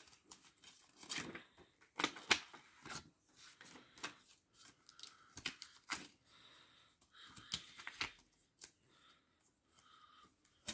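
Hands handling an open plastic CD jewel case and its paper booklet: irregular sharp clicks and rustles.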